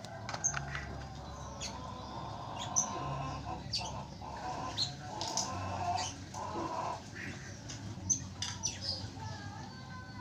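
Zebra dove fluttering its wings while it is held, with many short, sharp high chirps of birds scattered throughout.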